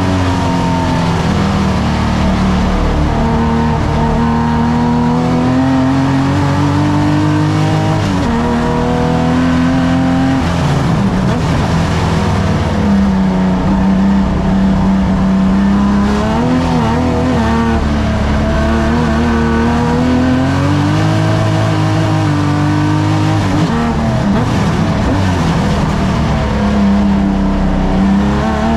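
Classic saloon racing car's engine, heard from inside the car and run hard at racing speed. Its pitch climbs under acceleration, holds, and drops several times with gear changes and lifting off for corners.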